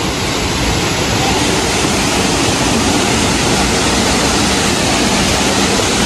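Waterfall: falling water rushing in a loud, even, unbroken noise.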